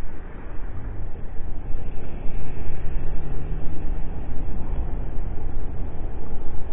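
Wind buffeting the camera microphone: a loud, low, rumbling noise that rises and falls unevenly.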